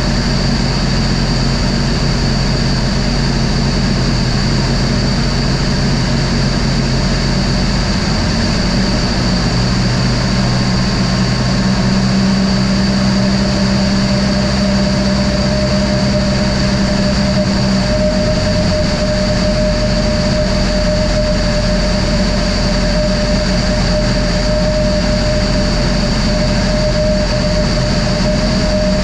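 Super Petrel LS amphibian's engine and pusher propeller running in flight, with heavy wind rush over the wing-mounted camera. The engine note shifts twice, about eight and eighteen seconds in.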